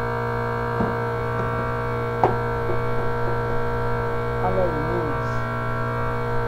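Electric fan running with a loud, steady hum made of several held tones. A few light clicks sound over it, the sharpest about two seconds in, and a brief wavering squeak comes about four and a half seconds in.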